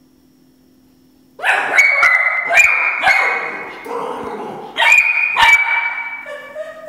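Three-month-old border collie puppy barking at its metal bowl in play: a rapid string of high-pitched barks starting about a second and a half in, with a few sharp clicks among them, then a short rising call near the end.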